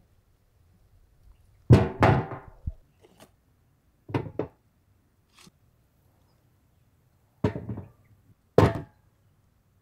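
A metal cooking pot and the boiled palmyra sprouts being handled, with a few separate knocks and thunks. The first, about two seconds in, is the loudest and has a brief metallic ring. A quick double knock follows, then two more thunks near the end.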